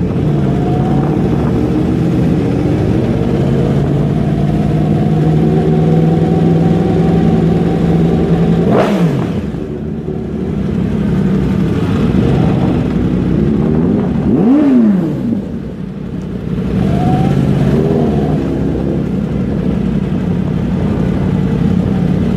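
Several motor vehicle engines running loud, with stacked engine tones throughout. Twice an engine's pitch climbs and drops sharply, about nine seconds in and again about fifteen seconds in.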